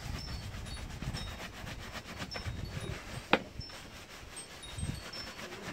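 Quick, repeated strokes of a wooden-backed bristle dust brush buffing a leather boot, with one sharp knock a little past halfway.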